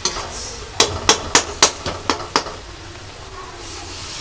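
A metal slotted spoon knocking sharply against the rim of a kadhai, about seven quick clanks in a second and a half. Then the masala frying with a faint hiss.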